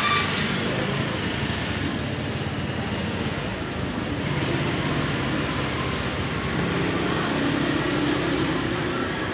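Steady low rumble and hum of background noise, mechanical and even throughout.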